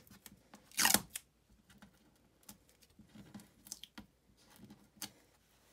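Light handling noises as Command strip adhesive residue is picked and peeled off a wall by hand: a short tearing scrape about a second in, then scattered small clicks and rustles.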